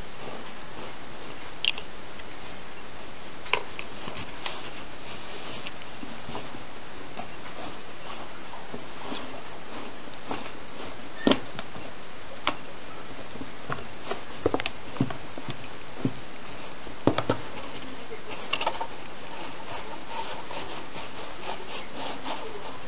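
Rustling of cloth and straw with scattered short clicks and knocks as a wild boar piglet roots and shuffles in its blanket-and-straw bedding, over a steady hiss.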